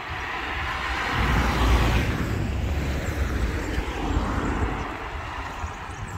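A small van approaching and passing close by on the road, its tyre and engine noise swelling, peaking and fading away, with a low rumble underneath.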